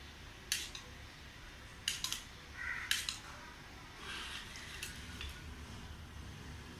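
A small metal spoon clinking and scraping against a little steel cup of batter as it stirs and scoops: several sharp, irregular clinks.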